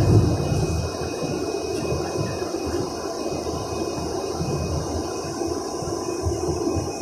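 Steady rumble of engine and road noise heard inside a moving bus.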